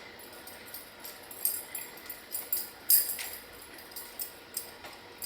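Metal bracelets on a wrist clinking and jingling in short, irregular bursts as the hands move, with a few sharper clinks about a second and a half in and near three seconds.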